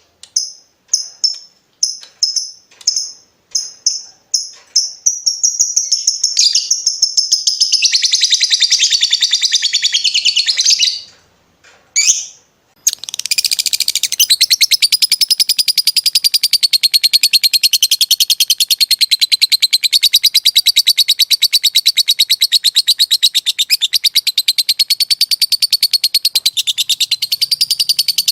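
Lovebird song: a run of short, sharp chirps about two a second, then a long, fast, continuous chattering trill, the drawn-out 'ngekek' that lovebird keepers prize. The trill breaks off for a moment about eleven seconds in, with a couple of single chirps, then resumes and runs on unbroken.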